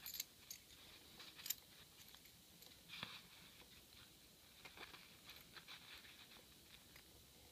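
Near silence, broken by a few faint clicks and taps of a key and brass padlock being handled.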